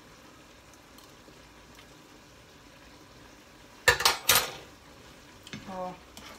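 Minced pork with chilli and garlic sizzling quietly in a frying pan. About four seconds in come two loud, sharp bursts close together, followed by a short voiced sound.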